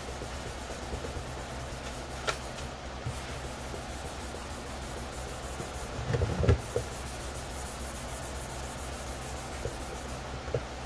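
Hand-sanding a plastic helmet shell with a fine foam-backed sanding pad: a steady dry rubbing, with a few low thumps about six seconds in.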